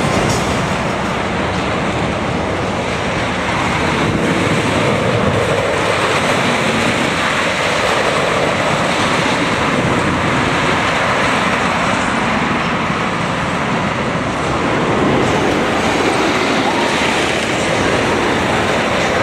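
A wooden roller coaster train, a GCI Millennium Flyer, running along its wooden track with a steady, loud rumble and rattle.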